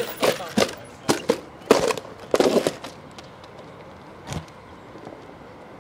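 RC monster truck knocking and clattering, as if bouncing or tumbling: about half a dozen irregular sharp bangs and scuffs in the first three seconds, one more knock about three quarters of the way through, then it goes quieter.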